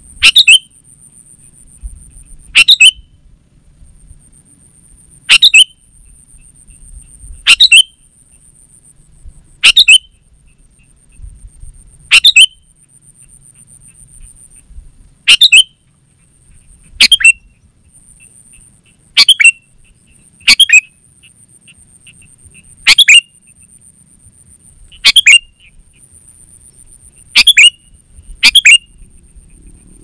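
Sooty-headed bulbul giving short, sharp calls about every two seconds, each note dropping quickly in pitch, sometimes two in quick succession. A steady thin high whine runs underneath.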